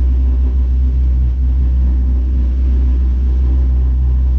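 Fishing boat's engines running steadily under way, a low, even drone, with the rush of water from the wake.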